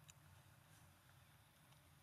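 Near silence, with a faint click just after the start.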